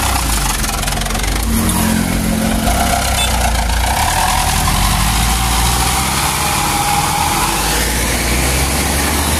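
Mitsubishi Fuso dump truck's diesel engine running close by as the truck pulls away, revving up with a rising pitch.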